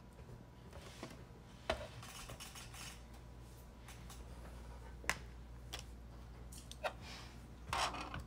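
Small scattered clicks and taps of a screwdriver being worked at the screw holding the PE sensor inside an Epson 8550 printer, with a few sharper clicks a second or two apart, over a low steady hum.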